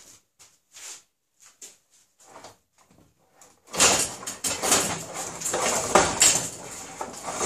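Homemade wooden rifling bench being worked by hand: the carriage is pushed along its guide, drawing the rifling cutter through a steel rifle barrel to cut a groove. It starts about four seconds in and runs as a loud, rough sliding and scraping noise for about four seconds, after a few faint ticks of handling.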